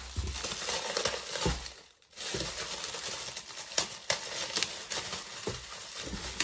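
Packaging being handled and unwrapped: plastic crinkling and rustling, with a few sharp clicks near the middle and a brief pause about two seconds in.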